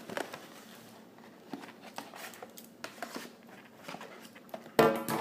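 Fast-food sandwich packaging being cut open and handled by hand: scattered small rustles and clicks. A short, much louder burst comes near the end.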